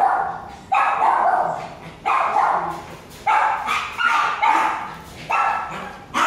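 A dog barking over and over, about one high-pitched bark every second or so, each dying away before the next.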